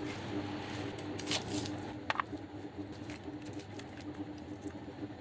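Kitchen knife cutting an onion on a plastic cutting board: a few light knocks of the blade on the board, then soft handling of the cut onion pieces in a stainless steel tray. A faint steady hum runs underneath.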